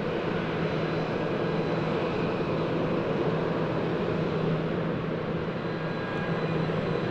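Airbus A320-216's CFM56 jet engines running at low taxi thrust as the airliner lines up on the runway: a steady hum with a faint high whine.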